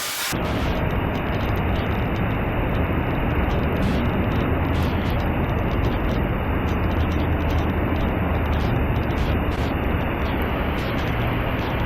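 Heavy rain, a dense steady hiss, with a low steady rumble beneath; it starts abruptly just after the beginning.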